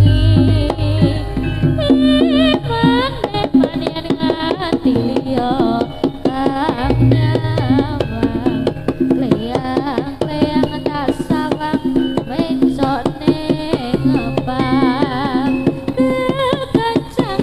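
Live jaranan music: hand drums and gamelan percussion under a wavering lead melody, with a deep low note near the start and again about seven seconds in.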